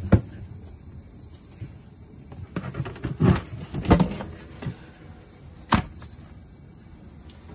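A yellow plastic bucket is handled and set down on concrete, giving a few knocks and thumps: one at the start, a cluster about three to four seconds in, and another near six seconds.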